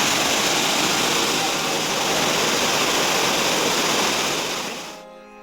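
Steady rush of a large waterfall, fading away about four and a half seconds in and cutting off near the end.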